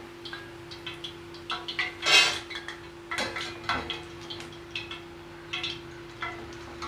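Perforated steel skimmer scraping and clinking against a stainless steel kadai while scooping fried boondi out of the oil, in a series of irregular short scrapes, the loudest about two seconds in.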